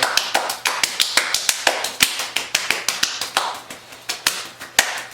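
Two people's hands clapping and slapping together in a hand-clapping game: a quick, even run of sharp claps, about six a second.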